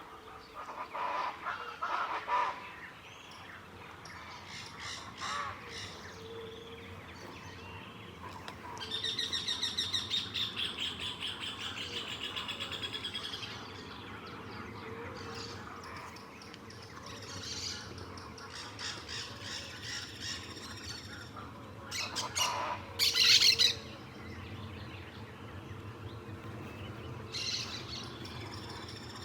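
Wild birds calling. About nine seconds in, one bird gives a fast run of high repeated notes lasting some four seconds; later come the loudest calls, short and harsh, with scattered chirps in between.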